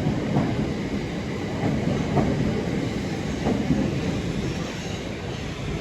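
Class 377 Electrostar electric multiple unit running by: a steady rail rumble, with a few wheel clacks over rail joints.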